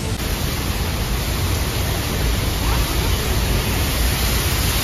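Niagara Falls pouring down just outside a tunnel portal: a loud, steady, even rush of falling water, heard from inside the rock tunnel.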